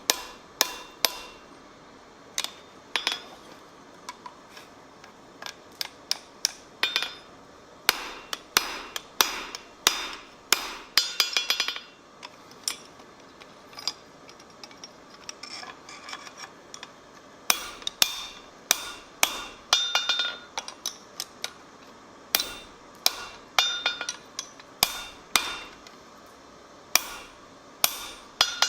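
Blacksmith's hand hammer forging on an anvil: runs of quick blows separated by short pauses, with a metallic ring after many strikes.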